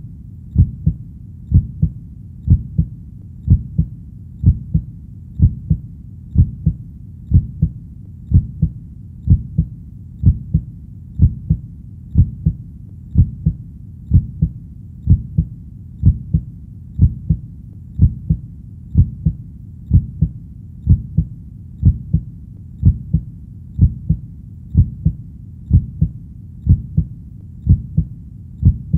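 Heartbeat: a steady lub-dub, each beat a pair of low thumps, repeating about once a second.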